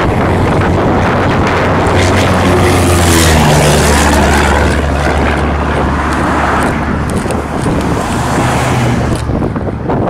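Cessna single-engine airplane's piston engine and propeller drone as it climbs out low overhead; the pitch drops about three seconds in as it passes directly over, then holds lower as it flies away.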